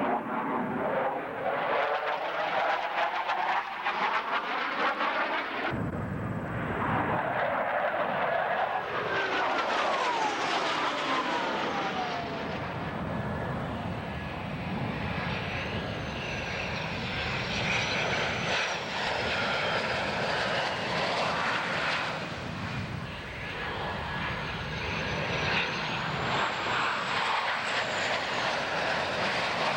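Jet aircraft flying past, engines loud and continuous, with pitch sweeps falling as they pass. The sound changes abruptly about six seconds in. In the second half a high whine wavers up and down over the engine noise.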